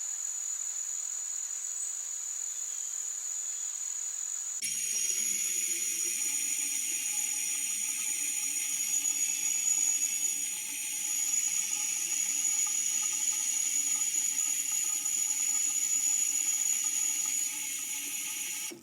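Steady high-pitched insect chorus in a forest. About four and a half seconds in it cuts abruptly to a denser chorus with several high pitches and some fainter lower steady tones, which runs on until it stops suddenly near the end.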